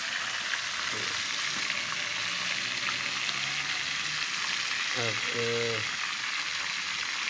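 A whole pomfret frying in hot oil in a nonstick pan: a steady sizzle that holds level throughout.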